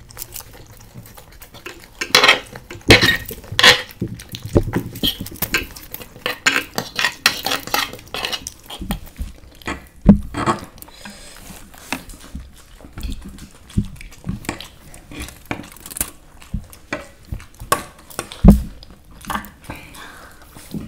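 Cutlery clinking and scraping against dishes as instant noodles are eaten, in irregular strokes with a few louder knocks.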